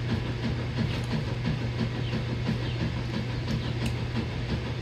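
A steady low mechanical hum, a motor running, with a faint quick pulsing and no change in level.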